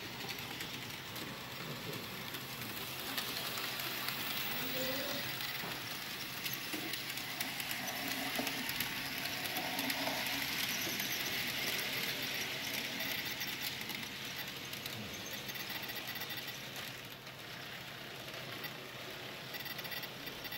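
N-scale model train, a steam locomotive pulling passenger cars, running along the track: a steady, hissing whir of motor and wheels on rail. It grows louder over the first few seconds, is loudest about halfway through as it passes close by, and then fades away.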